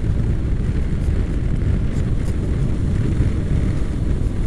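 Honda NC700X's parallel-twin engine running steadily while riding, mixed with a low wind rumble on the microphone.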